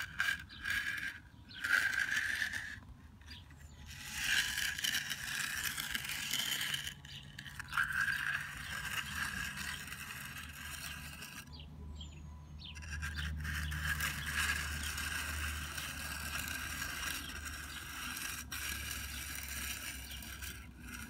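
Steel hand edging tool scraping along a construction joint in fresh concrete, in a series of strokes with brief pauses between them, as the joint edge is tidied.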